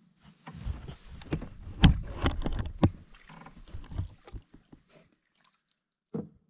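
Irregular knocks and clunks of things being handled against a canoe, the loudest about two seconds in, dying away after about four and a half seconds.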